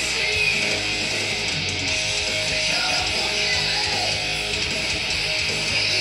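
Music played back from a TEAC Sound 52 cassette recorded and played on a Pioneer CT-A9X cassette deck, amplified by a Pioneer A-88X and heard over loudspeakers in the room. It plays steadily at an even level.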